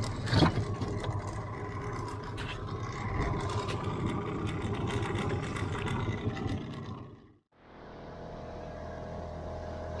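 A small boat's motor running steadily, with wind and water noise and a sharp knock about half a second in. The sound drops out abruptly about seven and a half seconds in, then a steady low motor hum returns.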